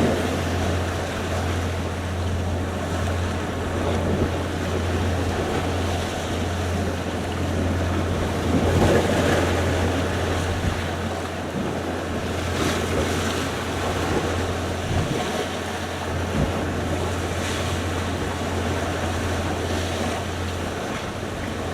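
Sea waves and surf washing in continuously, swelling louder a couple of times. A steady low hum runs underneath and stops shortly before the end.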